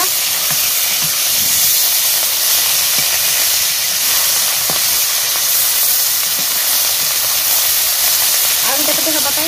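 Dried fish frying in hot oil in an iron kadai: a steady, loud sizzling hiss.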